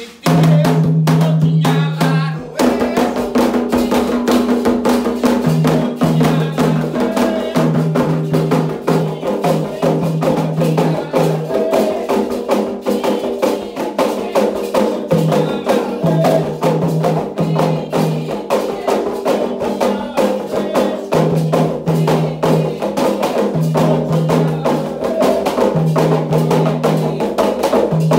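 Music led by fast, dense drumming and percussion, over a low bass part that comes and goes.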